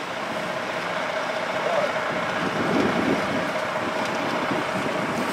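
A vehicle engine running steadily, with a constant hum.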